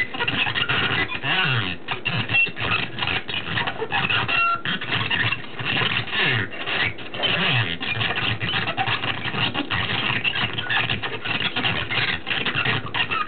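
Circuit-bent Speak & Spell spewing glitched, garbled synthetic speech and noise in rapid choppy stutters, with pitch sweeping up and down, cutting off suddenly at the end.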